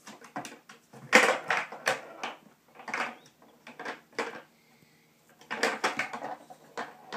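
Small toy pool balls clacking together and knocking and rattling against the wooden sides and ball-return pocket of a tabletop mini pool table as a cat paws at them. The knocks come in irregular clusters, with a quieter gap near the middle.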